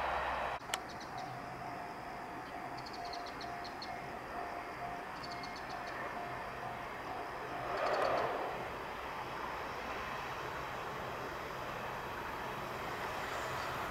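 Trackside sound of a train running at a distance: a steady even noise carrying a steady mid-pitched tone, swelling briefly about eight seconds in.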